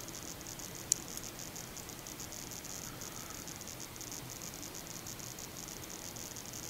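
Steady hiss with no music or speech, and one short sharp click about a second in.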